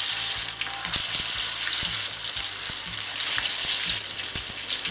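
Masala-marinated chicken leg pieces deep-frying in hot oil in a pan: a steady sizzle with small pops.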